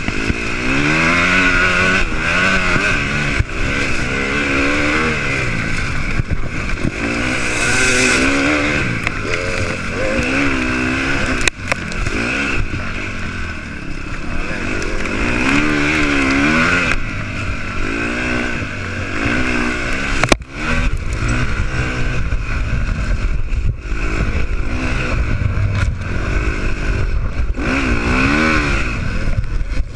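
Off-road dirt bike engine at race pace, its pitch rising and falling again and again as the rider works the throttle and shifts gears, with scattered knocks and clatter from the bike over the rough trail.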